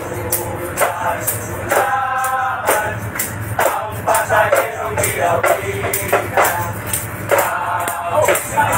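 A group singing a Christmas carol together, with a shaken jingling percussion keeping a steady beat.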